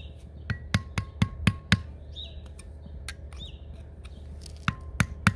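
Hammer tapping a screwdriver wedged against the rusty dust shield on a Nissan 300ZX differential to knock the shield off. There is a run of sharp metal-on-metal taps at about four a second, a pause, then three more near the end, several leaving a short ring. Birds chirp faintly in the background.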